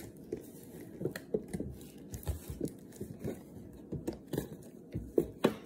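Hands handling things close to the microphone: a string of irregular light taps and clicks, a few a second, the loudest two near the end.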